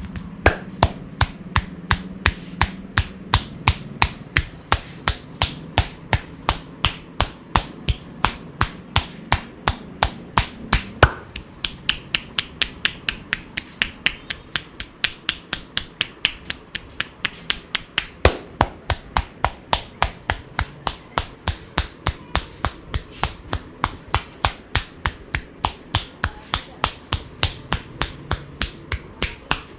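Percussive hand massage: a barber's hands striking the client's body in a steady rhythm, about three sharp slaps a second, with a few harder strikes along the way.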